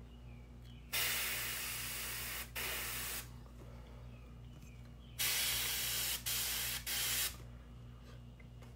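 Airbrush spraying paint in short passes: two bursts of hiss starting about a second in, then three shorter bursts from about five seconds in, the air cut off briefly between each.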